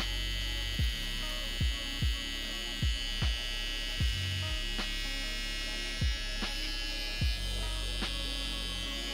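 Cordless hair trimmer (detailer) running with a steady high whine as it cleans up the hairline around the ear. Background music with a regular bass-drum beat plays under it.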